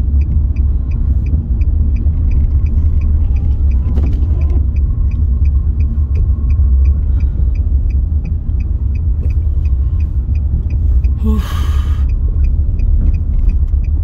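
Heavy, steady low rumble of a car driving on a snowy highway, heard from inside the cabin. A faint high ticking repeats about two to three times a second, and there is a short hiss about eleven seconds in.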